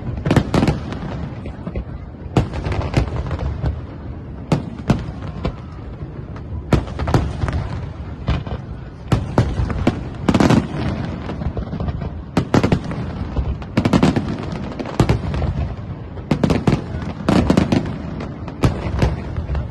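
Fireworks display: a fast, irregular run of sharp bangs and booms, several a second at times, over a continuous low rumble.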